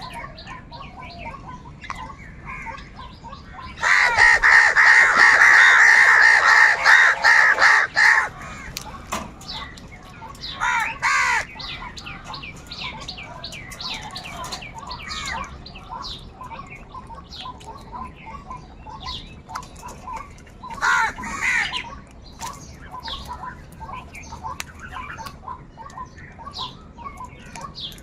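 Crows cawing: a loud, harsh run of close calls from about four to eight seconds in, shorter bursts of caws twice later, with fainter bird calls going on throughout.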